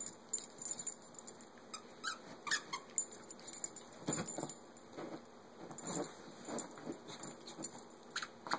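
A corgi rummaging through plush toys in her dog bed and chewing her squeaky chicken toy: irregular rustling, scuffling and small clinks, with louder scuffles about four and six seconds in.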